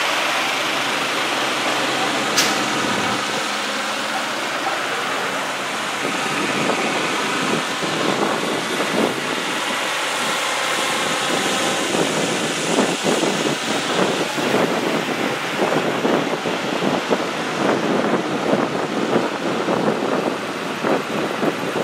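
A slow convoy of tow trucks, a semi tractor and pickup trucks passing close by, with a steady mix of engine and tyre noise from the heavy vehicles and a brief sharp click about two seconds in.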